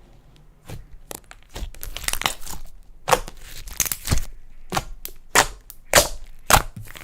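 Slime being squished and worked by hand, giving a run of irregular sharp pops and clicks that grow louder in the second half.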